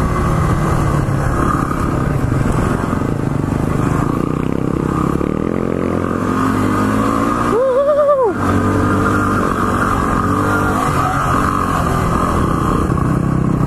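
Yamaha single-cylinder four-stroke dirt bike engine running under way, heard from the rider's own bike with wind noise over the microphone. About eight seconds in, the revs rise briefly and drop back.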